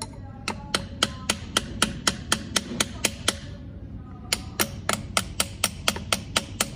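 Quick light taps of a screwdriver's plastic handle on a metal driver, driving a new rubber oil seal into the cast iron housing of a reciprocating water pump. The taps come about four a second, with a slight metallic ring, in two runs broken by a pause of about a second midway.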